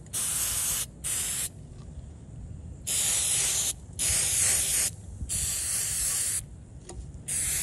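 Aerosol can of Citristrip paint and varnish stripper sprayed in about six short hissing bursts, each half a second to a second long, with brief pauses between them, as the epoxy tumbler is soaked with stripper.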